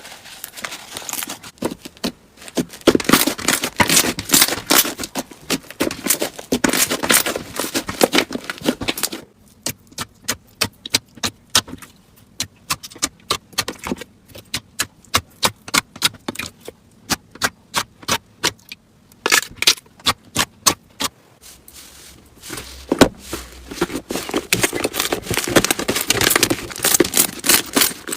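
Slime being squeezed and pressed by hand, giving a run of crackling clicks and pops. The crackling is dense at first, thins to separate sharp clicks a few per second through the middle, and turns dense again near the end.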